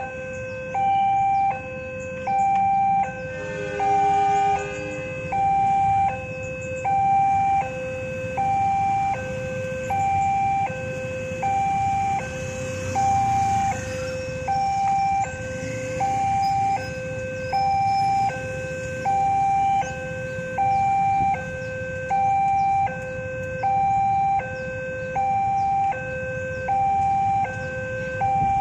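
Railroad level-crossing warning alarm sounding a steady two-tone electronic ding-dong, a higher and a lower tone alternating about every three-quarters of a second, signalling an approaching train with the barriers down. Motorcycle engines run low underneath.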